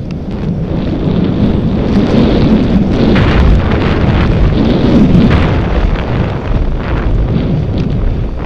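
Wind buffeting the microphone of a bicycle-mounted phone while riding, a loud deep rumble that swells in the middle, with a few sharp rattling knocks from the bike and mount over the road surface.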